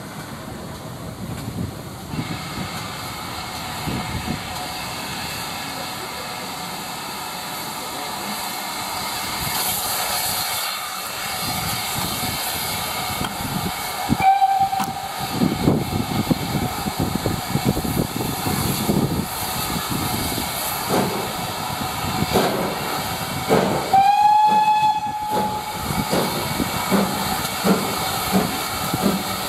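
Steam locomotive pulling away: a steady hiss of steam from the open cylinder drain cocks, with exhaust chuffs that grow stronger as it gets under way. Its whistle gives a brief toot about halfway through and a longer blast, sliding up at the start, about ten seconds later.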